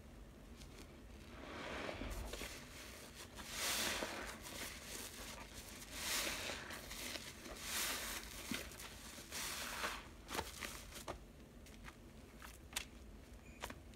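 A lathered black foam sponge squeezed by hand in soapy water: about five wet, hissing squelches, each a second or so long, as foam and water are pressed out. Near the end these give way to a scatter of short crackling clicks.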